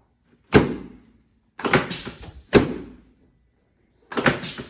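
About six loud, sudden thuds in three quick groups from chiropractic adjustment thrusts, each a sharp knock that dies away in under half a second.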